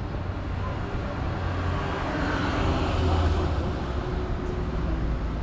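A motor vehicle passing by on the street: a low engine rumble and tyre noise that swell to a peak about halfway through, then ease off.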